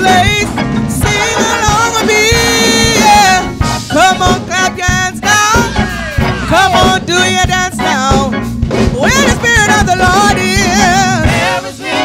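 Live gospel singing: a small group of vocalists singing together into microphones with musical backing, holding long notes with a wavering vibrato.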